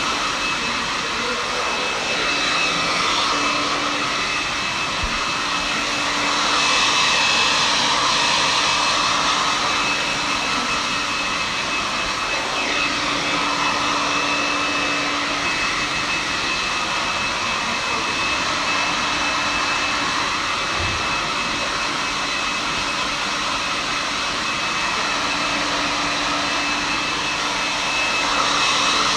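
Handheld hair dryer blowing steadily, a rush of air with a thin high whine, swelling a little at times as it is moved around the head while drying hair.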